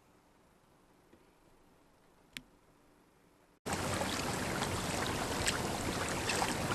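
Near silence with one faint click, then from about halfway in a steady wash of water and wind noise as a kayak moves out across open water.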